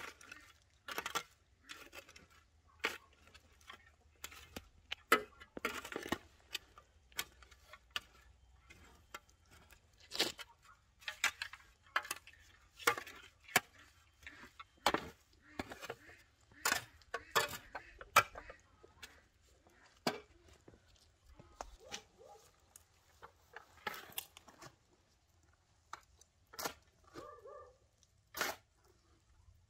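A metal garden shovel digging into soil: irregular scrapes and crunches as the blade cuts and turns the earth, roughly one a second.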